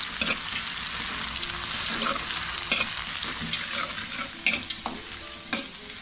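Sliced shallots sizzling in hot oil in a metal wok, with a slotted metal spatula scraping and clicking against the wok as they are stirred. The shallots are being fried until fragrant.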